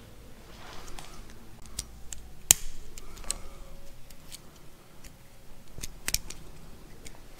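Irregular small plastic clicks and snaps from a wiring connector on a C8 Corvette front shock's damper lead, worked by hand while trying to release its terminal pins. The sharpest click comes about two and a half seconds in, and two more come close together around six seconds.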